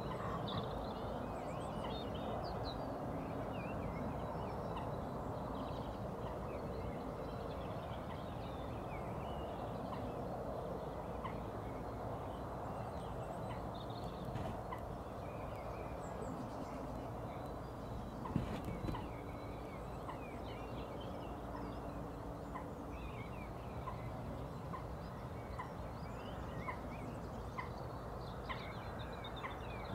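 Many small birds chirping and singing in scattered short calls over a steady low background rumble. A single brief louder sound comes about eighteen seconds in.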